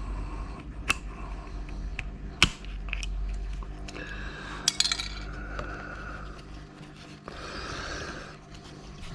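Small metal tool clicking and scraping against a computer connector as a single pin is worked out of it. There are a few sharp clicks, the loudest about two and a half seconds in, and stretches of scraping in between.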